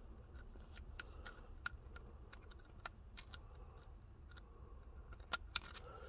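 Scattered light clicks and ticks, about a dozen spread over several seconds, as a threaded shift knob is turned and handled on a car's gear shifter, over a faint low hum.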